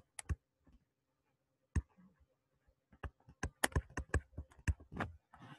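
Sharp taps and clicks of a stylus on a pen tablet during handwriting: a few scattered taps at first, then a quick run of them in the second half.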